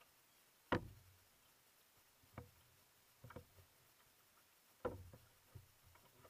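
Single-blade paddle strokes on a one-person outrigger canoe: a few sharp, irregular knocks, the loudest about a second in and another strong one near five seconds, each with a brief low ring through the hull, between faint quiet stretches.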